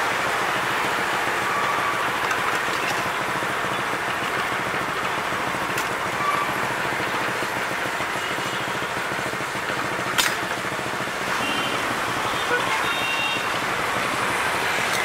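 Steady noise of road traffic, cars and motorbikes passing, with one sharp click about ten seconds in.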